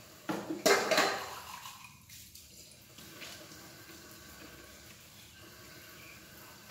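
Dishes being washed by hand in a stainless steel sink. A loud splash and clatter of water and dishes comes about half a second in and lasts about a second, then fades to faint rinsing and drips.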